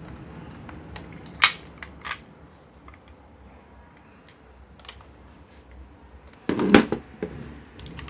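Kamen Rider Zero-One toy transformation belt being handled: a few sharp clicks, one about a second and a half in, then a louder cluster of clicks and a knock near the end.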